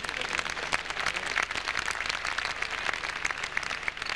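Spectators clapping in applause, the clapping thinning out near the end.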